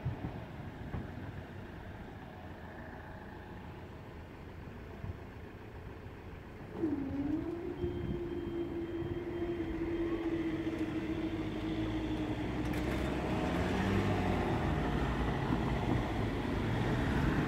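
Low vehicle rumble at a railway level crossing, growing louder from about a third of the way in. A held engine-like tone dips, settles and holds steady for several seconds before fading.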